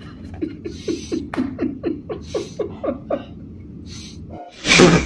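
A person laughing hard in a quick run of short 'ha' bursts, about four a second, each falling in pitch, with breathy gasps in between. A loud breathy burst comes near the end.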